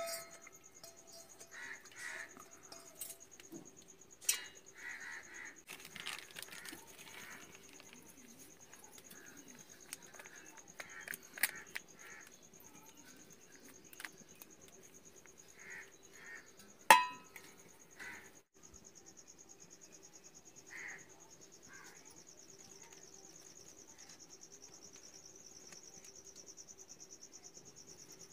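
Insects chirping in a steady high, finely pulsing buzz that grows stronger in the second half. Over it come scattered light clinks of metal cooking vessels being handled, and one sharp metallic clank about two-thirds of the way in.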